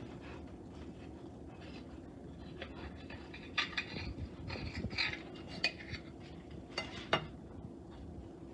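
Table knife sawing through a grilled cheese sandwich on toasted bread, scraping and clicking against a stoneware plate in a scatter of short strokes that bunch up in the second half, over a steady low hum.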